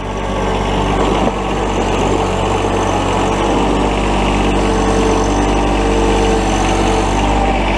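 John Deere 1023E compact tractor's three-cylinder diesel engine running steadily as the tractor drives along.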